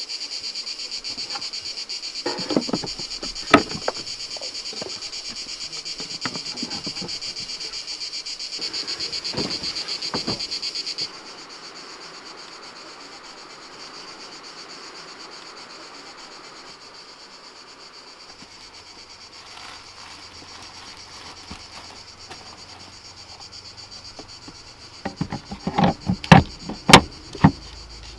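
Steady high-pitched chorus of insects chirping, with scattered knocks and clicks. The chorus drops suddenly to a fainter level about eleven seconds in, and a run of sharp, loud knocks comes near the end.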